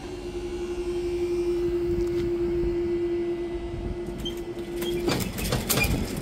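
Level crossing barrier mechanism whining with a steady tone as the boom rises, cutting off abruptly about five seconds in, followed by a rattle of clicks and knocks as the boom reaches upright.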